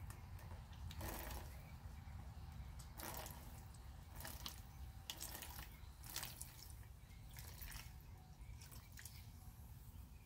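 Liquid wrung from a cloth sock of soaked coconut coir dripping and trickling into a small plastic tub, in faint irregular splashes. This is the coir's runoff being collected for a salt test.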